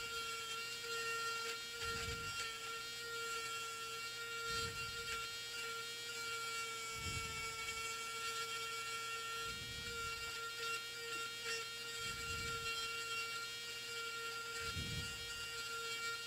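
Steady electrical hum from bench equipment, holding two pitches, with a soft low thud about every two and a half seconds.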